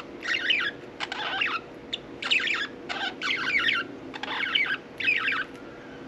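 Budgerigars chattering in a run of short, quick warbling bursts that stop about five and a half seconds in, over a faint steady hum.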